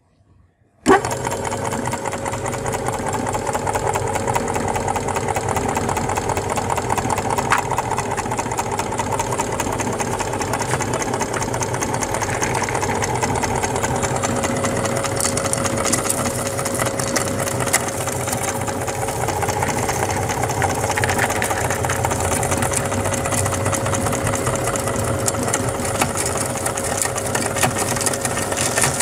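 Belt-driven meat grinder starting abruptly about a second in and then running steadily, with a steady hum and a constant patter of small clicks as khopra (coconut) candies are fed in and crushed through the plate.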